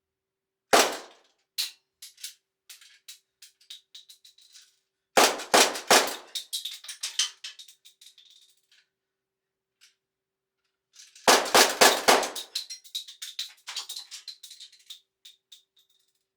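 Handgun shots: a single shot about a second in, then two quick strings of several shots. Each is followed by spent brass casings clinking and ringing as they bounce on a hard floor.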